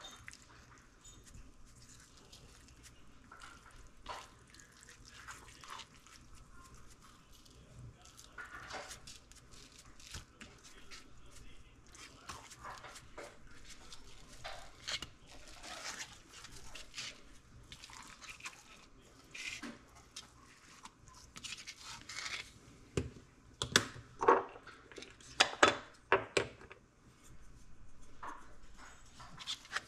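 Spice shaker shaken over a whole red snapper while a hand rubs the seasoning into the fish: soft, scattered shakes and rubbing, then a run of louder clicks and knocks a few seconds before the end.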